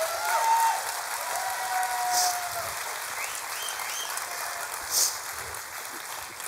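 A large seated audience applauding and cheering, with voices calling out over the clapping; the applause slowly dies down.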